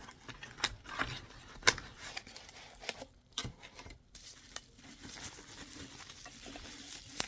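Items being unpacked by hand from a box: packaging rustling with a string of sharp taps and clicks.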